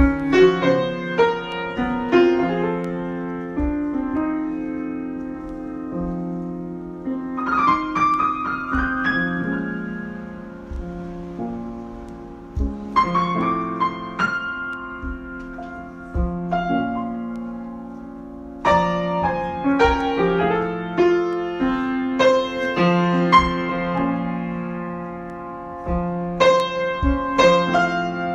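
Solo piano improvisation: chords and melodic phrases, with notes held and left to ring out and fade between phrases.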